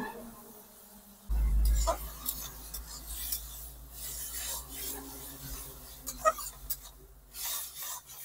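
Metal spatula scraping and stirring chopped tomatoes around a metal kadhai: repeated rasping scrapes with a few sharp knocks, over a low steady rumble that comes in about a second in.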